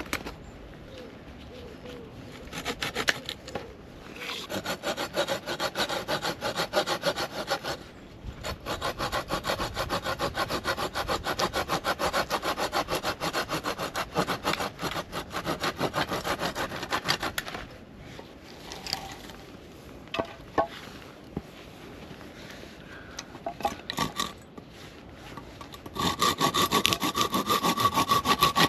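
Hand saw cutting wood in quick back-and-forth strokes, in three bouts with short pauses and a few knocks between them.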